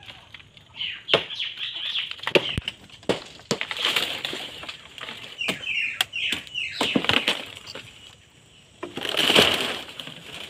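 Dry tokou palm fronds and leaf stalks rustling, scraping and knocking as a man climbs the palm's trunk, with a louder, longer rustle about nine seconds in.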